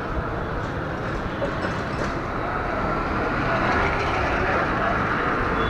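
Steady road traffic rumble with no distinct events, slowly growing louder toward the end.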